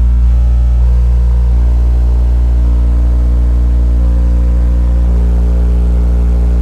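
12-inch Ampere Audio Encore subwoofer, with a 3-inch voice coil and neodymium motor, playing a loud, steady deep bass tone in a burp test. The burp reached 153 dB on about 3000 watts, which the owner takes to mean the sub may be running into a little compression.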